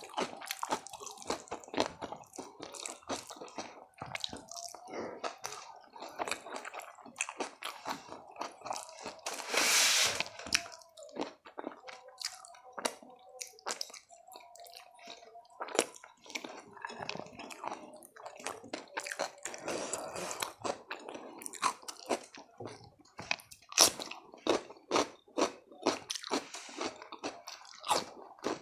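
Close-miked eating sounds: a person chewing and crunching a mouthful of food in a quick, irregular run of wet clicks and crunches. About ten seconds in there is a brief, louder hiss.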